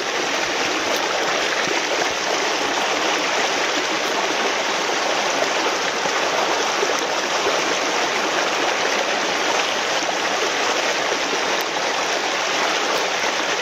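Fast, shallow creek water rushing right beside the microphone: a steady, even rush that holds at the same level throughout.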